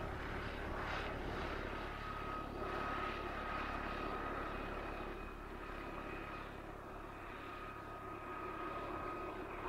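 Steady engine-like hum with a thin high whine that comes and goes over it.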